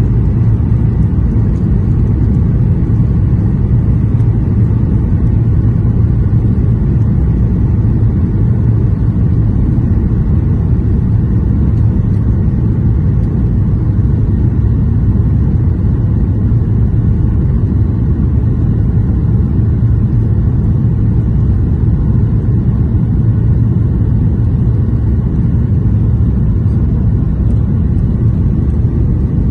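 Steady low roar of a jet airliner's engines and rushing air, heard inside the passenger cabin during the final approach to landing.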